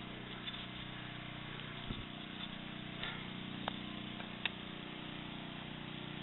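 A steady engine hum at an even pitch, with a few faint clicks about three and four and a half seconds in.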